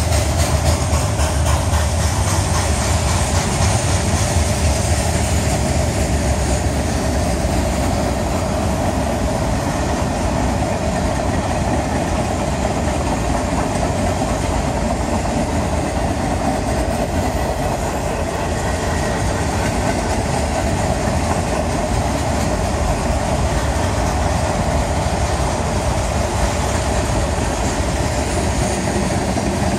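Freight cars of a long mixed manifest train rolling past close by: steel-coil cars, boxcars and covered hoppers, their steel wheels running on the rails in a steady, loud noise.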